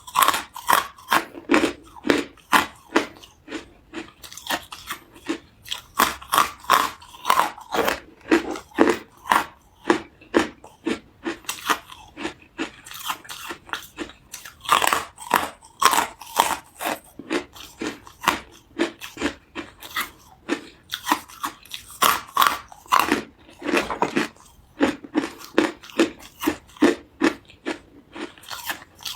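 Hard carbonated ice being bitten and chewed up close: a rapid, irregular run of sharp crunches, a few a second, with a couple of brief pauses.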